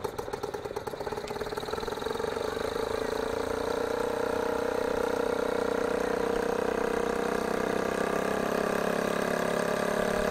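Aigle ultralight aircraft's engine and propeller running on the ground. It idles with uneven pulses at first, then about two seconds in picks up to a steady, smooth run.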